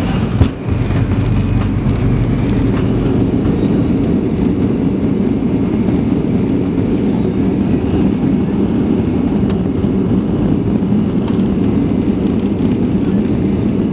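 Boeing 757 cabin noise as the airliner rolls on the ground after landing: a steady low rumble of the engines and the airframe. A brief bump about half a second in.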